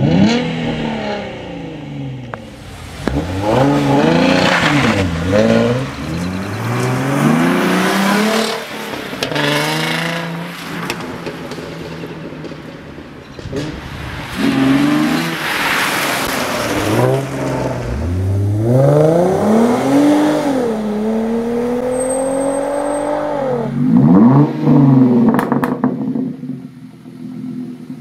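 2011 Hyundai Genesis Coupe 3.8 R-spec's V6 through an aftermarket exhaust, revved again and again, the pitch climbing and dropping with each blip. About two-thirds of the way through there is a longer pull that rises, dips once, climbs again and holds, before falling away.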